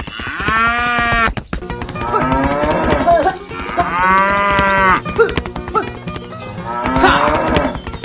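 Cattle mooing three times, each a long call that rises and falls in pitch, over a steady clatter of rapid clicks and knocks.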